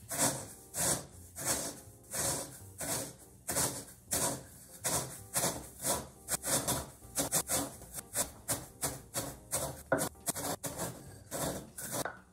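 Wooden pestle grinding Rice Krispies cereal in a wooden mortar, crushing the puffed rice into powder. Rhythmic scraping and crunching strokes, about one and a half a second, getting quicker in the second half.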